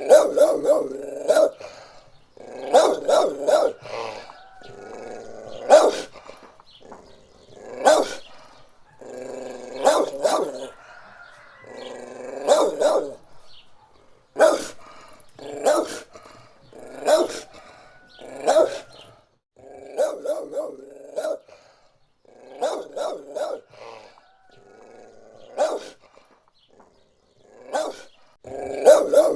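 Several dogs barking repeatedly in short bursts of a few barks each, a new burst every second or two.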